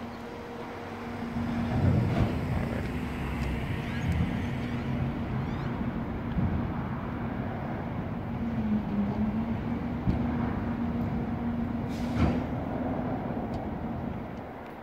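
Street traffic: a heavy vehicle's engine runs with a steady hum that dips briefly in pitch partway through, over a low rumble, with one sharp click near the end.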